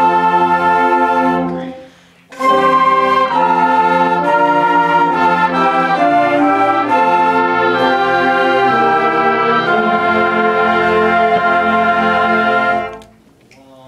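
School concert band of woodwinds and brass playing loud held chords as a tuning exercise. The band releases a chord about two seconds in, comes back in a moment later, and moves through several held chords before cutting off together about a second before the end.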